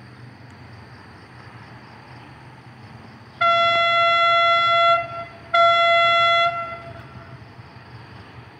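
Horn of the approaching QSY diesel-electric locomotive, sounded twice on one steady note: a blast of about a second and a half, then a shorter one of about a second after a brief gap. A faint low rumble lies under it throughout.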